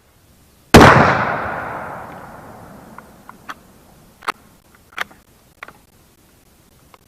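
A single gunshot under a second in, with a long echoing decay. It is followed by a string of sharp, smaller clicks and knocks.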